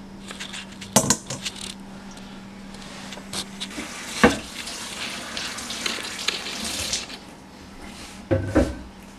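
Kitchenware knocking and clattering at a sink, the loudest knock about four seconds in and a cluster near the end, with a kitchen tap running for a few seconds in the middle.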